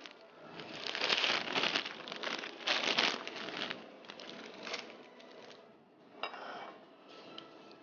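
Dry vermicelli frying in hot oil in a nonstick pan: irregular crackling, loudest in the first half and dying down toward the end.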